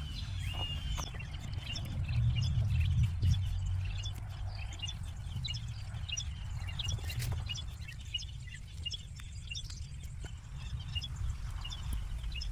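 Small birds chirping, many short high calls, over a low rumble that is loudest a few seconds in.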